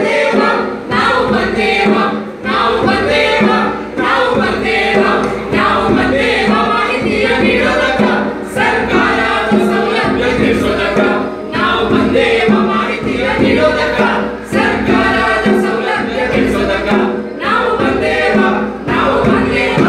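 A group of performers singing a song together in unison, with short pauses between lines.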